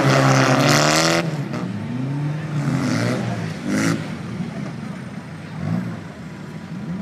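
Race car engines on a dirt figure-eight track. One engine revs loud and close in the first second, rising in pitch, and cuts off suddenly. Quieter engines then rev up and down several times.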